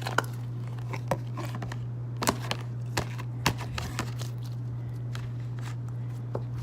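Clear slime with foam beads being squeezed and worked by hand, giving irregular crackles and small pops, over a steady low hum.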